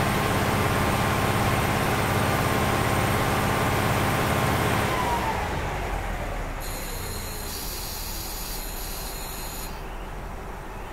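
Cummins DMF14HZ diesel engine of a KiHa 47 railcar being revved while the car stands still, held at high revs, then easing back toward idle about five seconds in, the pitch falling and the sound dropping away. A steady high hiss comes in for about three seconds near the end.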